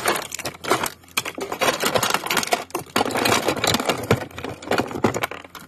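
Small plastic toys and trinkets clattering and clicking against each other as a hand rummages through a box of them, a dense run of rapid clicks.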